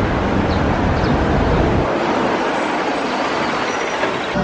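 Street traffic noise: a steady hiss of passing vehicles, with a low engine rumble that drops away about two seconds in.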